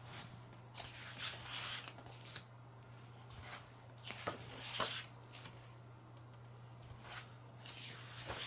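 Pages of an album photobook being turned and handled, paper rustling in several short swishes, over a faint steady low hum.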